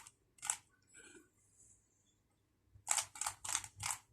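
Plastic Rubik's cube layers being twisted, clicking with each turn: one turn about half a second in, then four quick turns in a row near the end, a run of the four-move solving algorithm.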